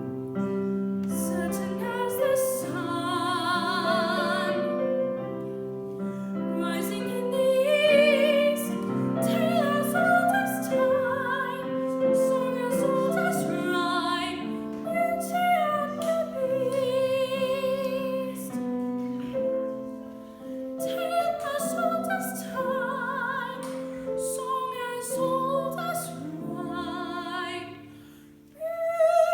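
Operatic-style singing with a strong vibrato, accompanied by piano. The music thins briefly near the end before a loud sung note returns.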